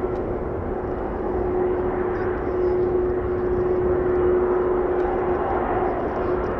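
Airbus A330's twin jet engines running as the airliner rolls past: a steady drone with one held tone over a broad rush, swelling slightly about four seconds in.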